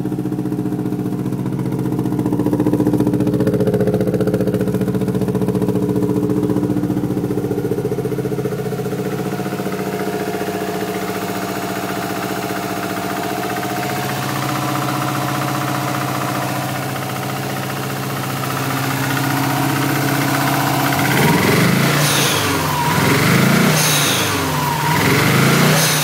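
Subaru WRX's EJ20 flat-four engine running steadily with a misfire on cylinders 1 and 3, their plugs fuel-fouled, which the owner suspects is an ignition fault. Near the end it is revved up and back down about three times.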